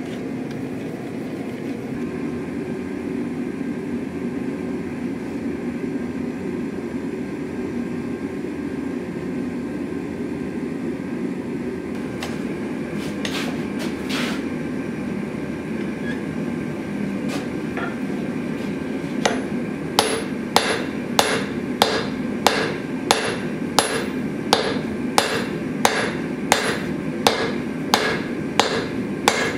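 Hand hammer striking red-hot steel on an anvil, a regular run of blows about two a second that starts about two-thirds of the way in. Before it, and beneath it, a steady low rushing noise, with a few light clicks shortly before the hammering begins.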